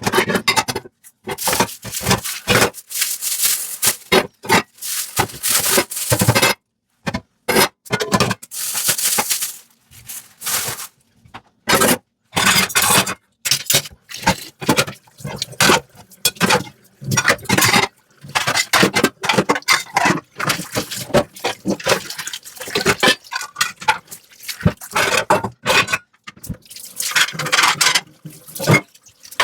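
Dishes being washed by hand: sponge scrubbing and scraping on dishware, with water sounds, in irregular bursts broken by brief silences.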